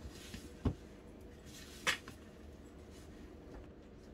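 Hands kneading crumbly dough in a bowl: faint squishing and rustling, with a dull thump a little under a second in and a sharper knock against the bowl near two seconds.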